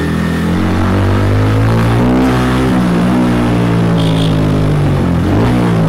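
Motorcycle engine and exhaust running in low gear at walking-pace speed, the revs rising and falling. The owner calls its exhaust note next level.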